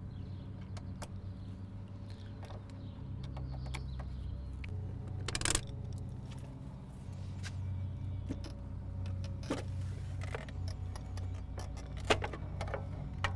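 Small clicks and plastic clatter as a screwdriver undoes the screws of a trailer tail-lamp lens and the lens is lifted off, with a sharper knock about five seconds in and another near the end. A steady low hum runs underneath.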